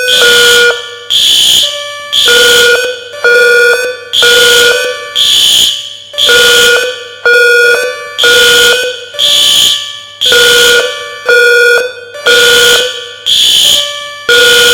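Building fire alarm sounding a loud, ringing pulse about once a second, each one starting sharply and fading, with a second alarm's steady tones underneath.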